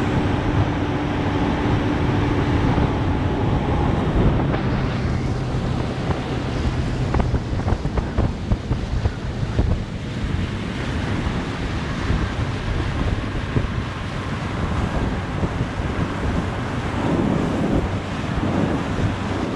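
Wind buffeting the microphone of a moving small motorboat, with water rushing along the hull and a low steady motor hum underneath that fades after the first few seconds.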